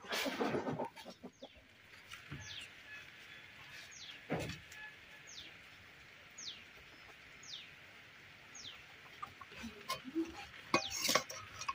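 Chickens' high, falling chirps, repeated about once a second. A burst of noise opens it, a thump comes about four seconds in, and near the end a metal spatula clinks against a steel wok.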